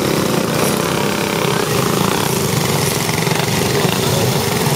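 A field of small go-kart engines running together, a steady mechanical drone with no breaks.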